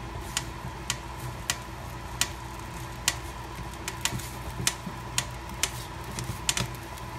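Food frying in coconut oil in a skillet while being stirred: sharp, irregular pops about one or two a second over a steady hum.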